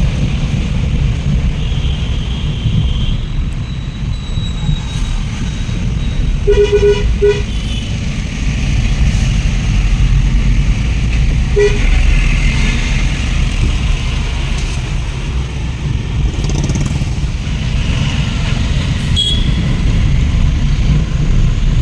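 Train running with a steady low rumble, with two short horn toots about six and a half seconds in and another brief toot about twelve seconds in.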